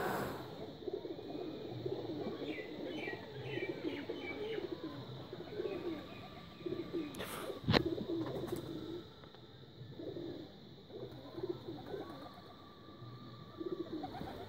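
Domestic pigeons cooing over and over, low and wavering. A run of quick higher bird chirps comes a few seconds in, and a single sharp click sounds about eight seconds in.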